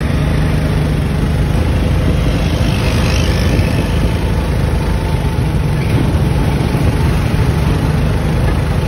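Steady city road traffic: engine noise of motor scooters and cars with a heavy low rumble.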